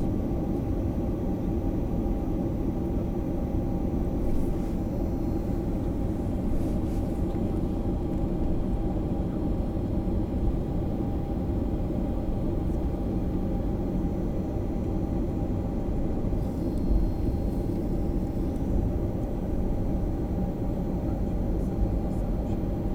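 Jet airliner cabin noise: a steady low rumble of the engines and airflow with an even hum, heard from inside the cabin.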